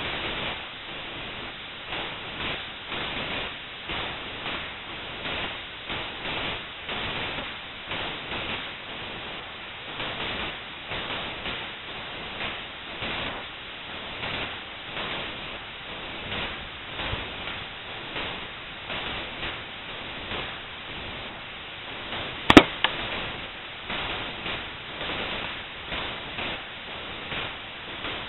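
A single rifle shot about two-thirds of the way in: a blackpowder-loaded .22 Long Rifle round fired from a J.C. Higgins single-shot rifle, a sharp crack followed a fraction of a second later by a second, quieter crack. Underneath, a steady hiss swells and fades about once a second.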